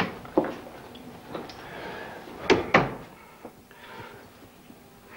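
A door being handled and shut: two pairs of sharp knocks, the second pair about two and a half seconds after the first.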